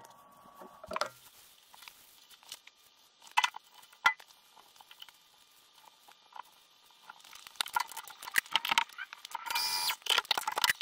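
Small metal clinks and clicks of a steel part being handled and set into a milling machine vise: a few isolated clicks at first, then a busier clatter of metal on metal near the end.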